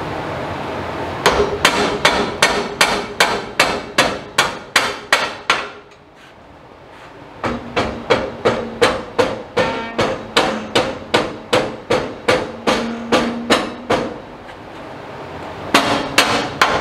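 Rubber mallet hammering a steel truck-frame center crossmember into place between the frame rails, in rapid runs of about four blows a second, each with a short metallic ring from the steel. Two long runs are broken by a short pause, and three more blows come near the end.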